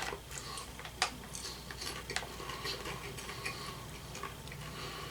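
Popcorn being chewed and handled: soft, scattered crunches and light clicks, the sharpest about a second in.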